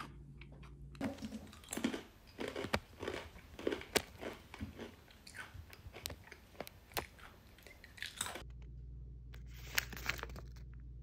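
A crunchy snack being bitten and chewed close up: a dense run of sharp crunches for several seconds, then quieter near the end with only a few clicks.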